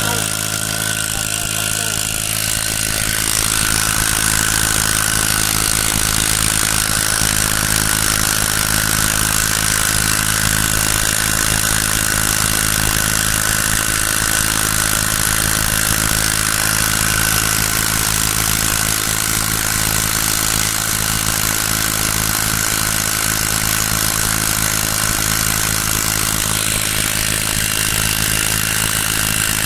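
Small brush-cutter engine driving a boat's propeller, running steadily; it picks up a little about three seconds in.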